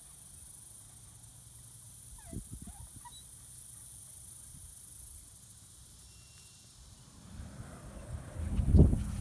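Quiet outdoor lakeside ambience with a steady high hiss and a few short dog yips with light thuds about two and a half seconds in. Near the end a jet ski's engine comes in loud and rumbling.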